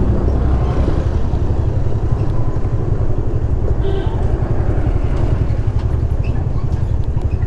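A TVS Ntorq 125 scooter's single-cylinder engine running while it is ridden, under a heavy, steady low rumble of road and wind noise.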